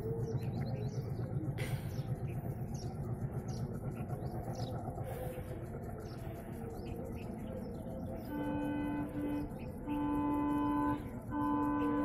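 Alco WDM-3A diesel locomotive horn sounding a series of blasts from about eight seconds in: a short blast, a brief one, a blast of about a second, then a long held blast. Before the horn there is a low rumble, with birds chirping throughout.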